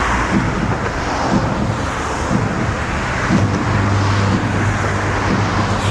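Steady outdoor background noise with a heavy low rumble, typical of wind on the microphone. A steady low hum joins it about three and a half seconds in.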